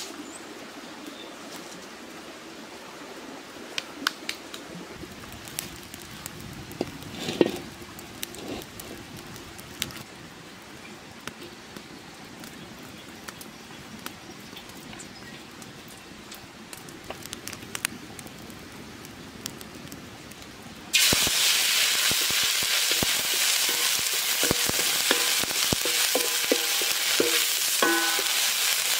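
Spice paste frying in oil in a steel wok, with a spatula scraping and clicking against the metal. About 21 seconds in, the sizzling turns suddenly much louder and stays loud as raw chicken pieces and chillies go into the hot oil.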